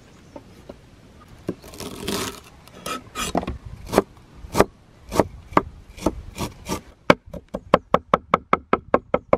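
Hands sprinkling salt over a heap of freshly chopped greens on a wooden board and working them: a short rustling hiss about two seconds in, then crisp crunching rubs, slow at first, quickening near the end into a fast even run of about five a second.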